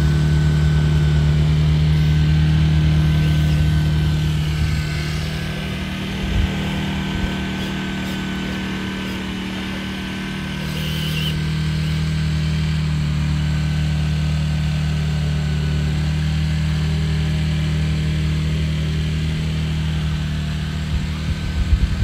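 Scale RC truck running with a steady, deep, diesel-like engine drone that stays at one pitch. It drops in level about five seconds in and comes back up about eleven seconds in.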